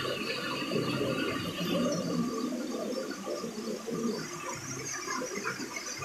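Small waterfall splashing down into a rock pool, with thinner streams of water trickling and dripping down the rock face: a steady, uneven rush.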